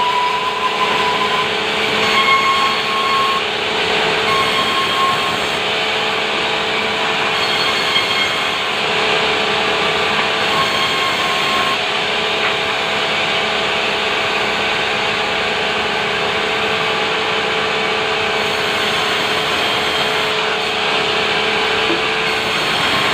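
Sawmill saw running steadily and cutting through timber: a continuous, loud sawing noise over a steady hum, with brief high whines that come and go in the first half.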